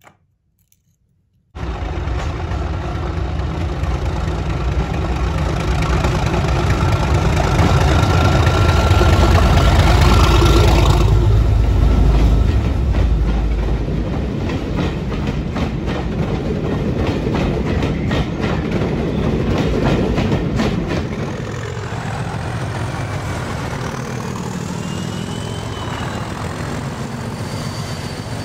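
Model train of OO gauge 21-ton mineral wagons running along the track: a steady rumble with fast clicking of the wheels over rail joints. It starts abruptly about a second and a half in, is loudest in the middle as the wagons pass close, and eases off in the last few seconds.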